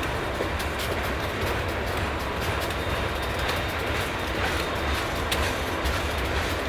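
Freight train of steel coil cars rolling past: a steady rumble with scattered clicks and clunks of wheels over rail joints.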